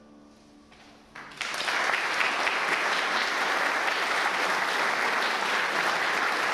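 The music's final chord fades out, then about a second in an audience starts applauding and keeps up steady clapping.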